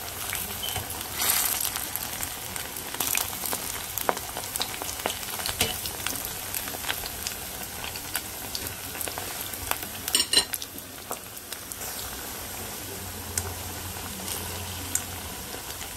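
Plantain strips deep-frying in hot oil in a pot: a steady bubbling sizzle with many small pops and crackles. A brief sharp clatter about ten seconds in.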